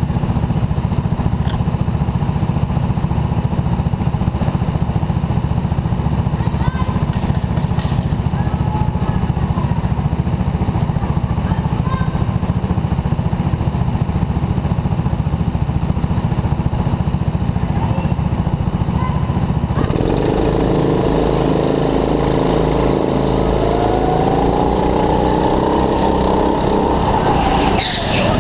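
Gasoline go-kart engine idling steadily, then revving up about two-thirds of the way in, its pitch climbing as the kart accelerates away. There are brief crackles near the end.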